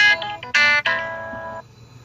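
Samsung Galaxy J7 Max ringtone playing: a few quick pitched notes, then a longer note that fades out about a second and a half in.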